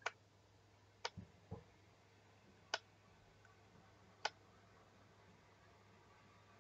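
Near silence with a faint low hum, broken by four sharp, irregularly spaced clicks and two duller knocks close together about a second and a half in.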